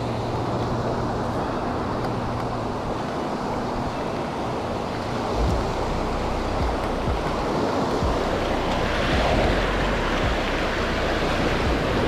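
Small sea waves breaking and washing up a sandy beach, the foamy surf rushing in around the microphone and growing louder over the last few seconds. Wind buffets the microphone with a low rumble from about halfway through.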